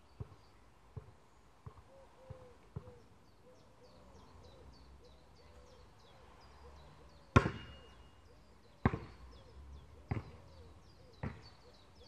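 Basketball dribbled on a hard outdoor court, five light bounces in the first three seconds. After a pause, a shot strikes the metal hoop with a loud clang and a short ringing about seven seconds in, and the ball then bounces on the court three times. Birds sing throughout.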